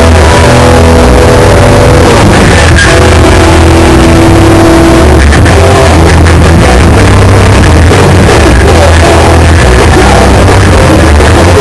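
Hardcore punk band playing live: distorted electric guitars holding chords over bass and drums, all recorded at full level so that the sound overloads.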